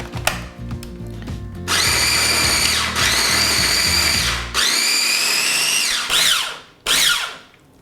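Electric mini food chopper blending a sauce in several pulses: a long run of about three seconds, a shorter one, then a brief burst near the end. Its motor whine drops in pitch as it spins down after each of the last two.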